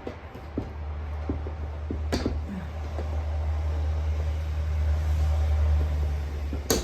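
A low rumble that slowly swells, with scattered sharp clicks of a hand tool working a glazing pin out of an old wooden window sash; a loud click near the end as the pin comes free.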